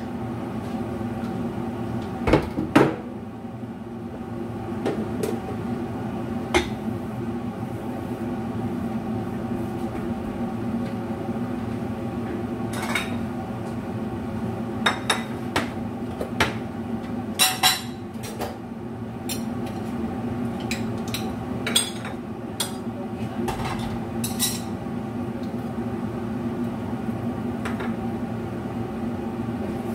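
Dishes and utensils clinking and knocking now and then, the loudest a pair of knocks near the start, over a steady low hum.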